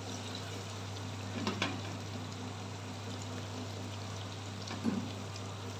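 Mutton palak curry bubbling gently in an aluminium pot on a gas burner, over a steady low hum, with a couple of light knocks of the wooden spoon against the pot, one about a second and a half in and one near the end.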